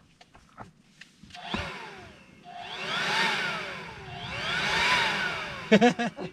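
An electronic tone sweeping up and down in pitch twice, like a siren wail, then a few quick sharp chirps near the end.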